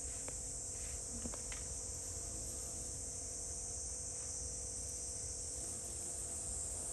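A steady, high-pitched chorus of insects such as crickets, running without a break, with a faint low hum beneath it and a few light clicks about a second in.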